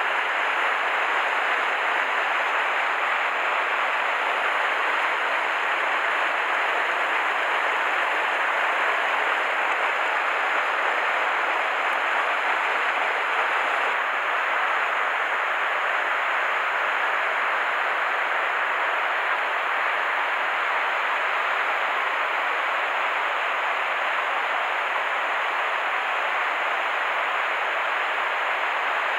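Steady rush of flowing water from a mountain river, unbroken throughout.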